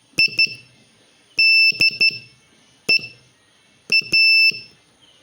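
Morse code sent as a high-pitched beeping tone, spelling IDEA: dot dot, dash dot dot, dot, dot dash.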